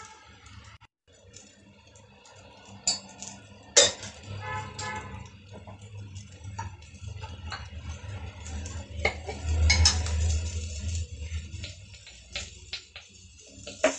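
Scattered clinks and knocks of metal kitchen utensils against a pan and containers, with a sharp clank about four seconds in and another cluster around ten seconds in, over a low hum.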